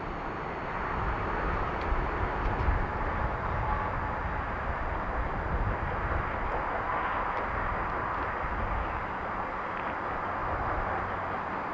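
Soo Line 2719, a 4-6-2 Pacific steam locomotive, working with its train in the distance: a steady rushing noise with a low rumble underneath and no distinct beat.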